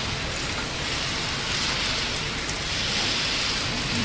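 Aerosol spray can spraying: a steady hiss.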